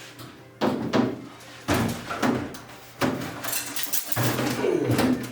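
Metal parts of a scrap microwave oven banged and knocked as they are pulled apart: about five sharp clanks, irregularly spaced, each dying away briefly.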